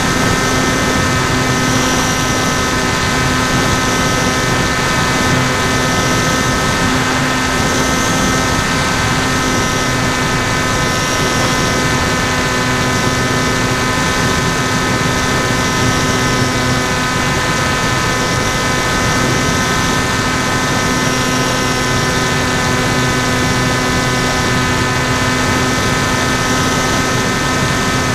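Electric motor (NTM 2836 1200 kV) spinning a 10x5 APC propeller on a flying-wing model plane, running at a steady, constant pitch in cruise, picked up by the onboard camera together with rushing noise.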